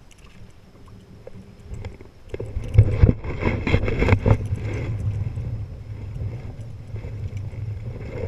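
Wind and choppy water rumbling against the camera's microphone, loud and uneven, picking up about two seconds in.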